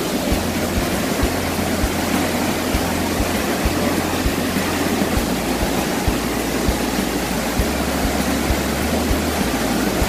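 Large waterfall in full rainy-season flood: a loud, steady rush of heavy water plunging about fifty metres into its pool.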